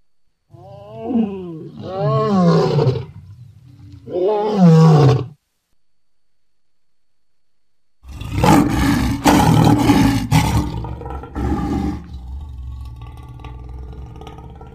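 Lion roaring: three pitched calls that fall in pitch in the first five seconds. After a pause of about three seconds comes a louder, rougher run of roaring that dies away near the end.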